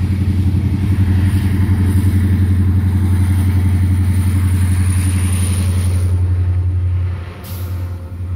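Several CSX diesel-electric locomotives of a freight train pass close beneath, their engines making a loud, steady low drone. The drone eases off about seven seconds in as the last locomotive goes by.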